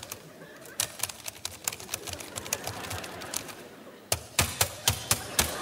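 Typing on a computer keyboard: a quick, irregular clatter of keys, then from about four seconds in a run of louder single key strikes, about four a second.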